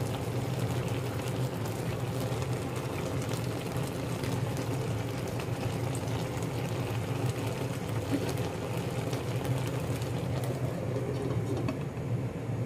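Steady low hum and hiss of a lit stove under a pot of fish simmering gently in vinegar and water over medium heat.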